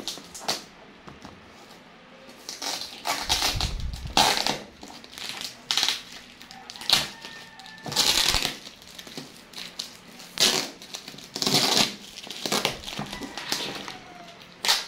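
Scissors cutting through the packing tape and cardboard of a parcel: a series of short, sharp rasping cuts and tears, roughly one every second, starting a couple of seconds in.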